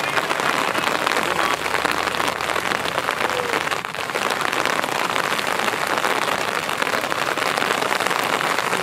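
Rain falling steadily, a dense hiss of drops.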